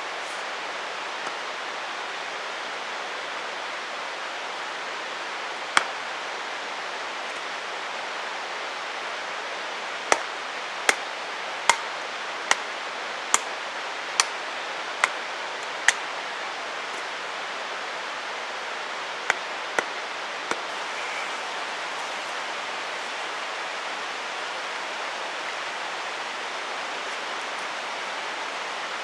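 Steady rush of a mountain stream. About a dozen sharp knocks sound over it: one, then a run of eight evenly spaced roughly 0.8 s apart, then three more.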